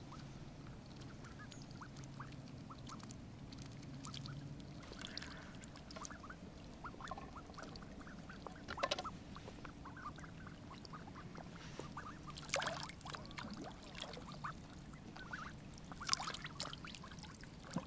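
A small group of ducklings swimming close by, giving many short soft calls, with three louder short calls or splashes about 9, 12 and 16 seconds in.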